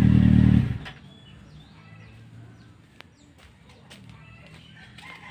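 Kawasaki Z750's inline-four running steadily at idle through a Mivv aftermarket exhaust. It is switched off well under a second in and dies away, leaving faint bird chirps and a few light clicks.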